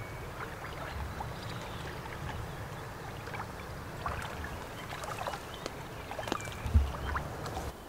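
Rustling and crackling of large angelica leaves and stems being handled, as scattered short clicks, over a low steady rumble.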